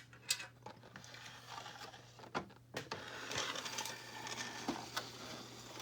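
Handling noise from a toy being moved about: a few sharp clicks and knocks and soft rustling, over a steady low hum.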